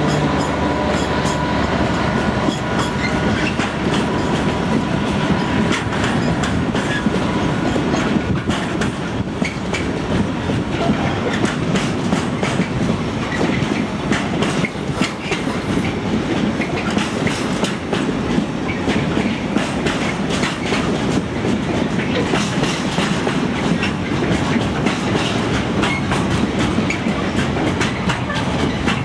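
Container freight train's flat wagons rolling past in a steady rumble, with rapid clicks of wheels over rail joints. A hum fades away in the first few seconds.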